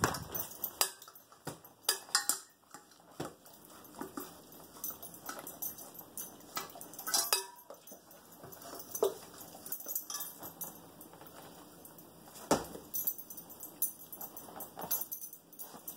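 A dog licking and nosing a plastic slow-feeder bowl for the last of its food: irregular clicks, knocks and scrapes as the bowl bumps and slides on a tile floor.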